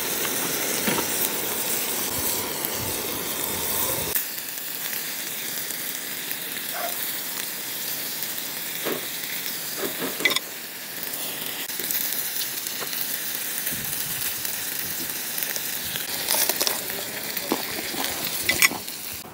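Meat and vegetables sizzling on a round tabletop grill pan, a steady frying hiss that drops a little after about four seconds, with a few sharp clicks over it.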